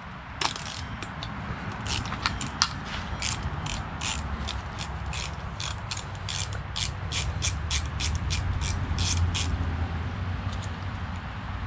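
Hand ratchet wrench clicking in a steady run, about three clicks a second, as a bolt is turned out, over a low steady hum.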